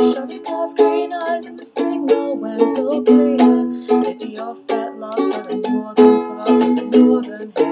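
Makala ukulele strummed in a steady rhythm of chords.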